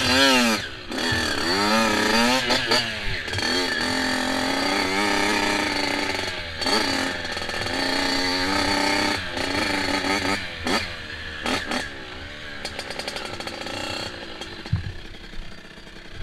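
Dirt bike engine heard close up from the rider's helmet, revving up and down repeatedly as the bike is ridden, then easing off to a lower, quieter running in the last few seconds as it slows to a stop.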